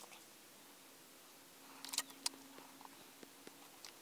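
A few light, sharp mechanical clicks about two seconds in from handling the FX Impact MKII PCP air rifle just after a shot, then small ticks against a quiet background.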